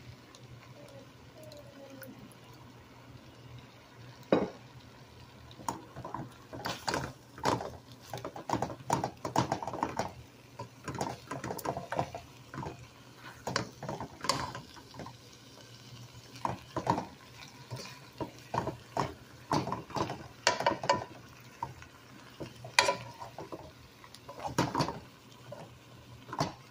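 Wooden spoon stirring and scraping a meat sauce with spaghetti in a nonstick frying pan: irregular knocks and scrapes against the pan, starting about four seconds in, over a low steady hum.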